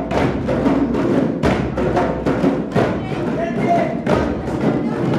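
A group of djembes played together by hand, beating out a steady, quick rhythm of roughly four strokes a second.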